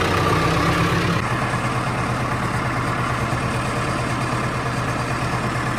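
Mahindra 555 DI tractor's diesel engine just after starting, running a little fast at first and then settling to a steady idle about a second in.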